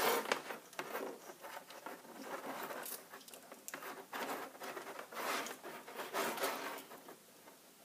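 Faint, irregular scratching and ticking of a wire being bent, threaded and wrapped through the slots of a small stainless steel wire connector by hand.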